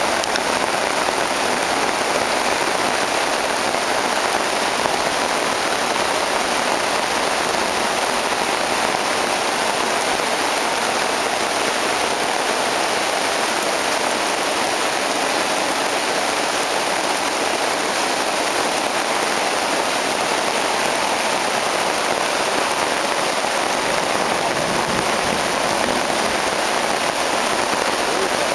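Steady, even rain falling on the woods and pattering on a tarp overhead.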